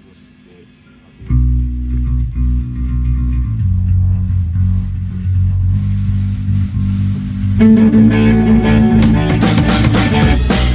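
Rock band music: a bass guitar comes in suddenly about a second in with low held notes, guitar builds in over it, and drums with cymbals join near the end.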